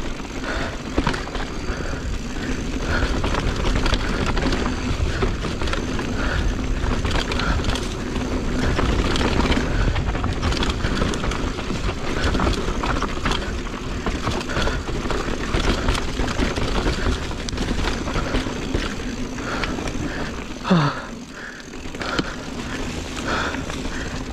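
Mountain bike rolling fast over a dirt trail: a constant rush of wind on the microphone with tyre rumble and many small rattles and clicks from the bike. Near the end there is a brief, loud sound that drops sharply in pitch.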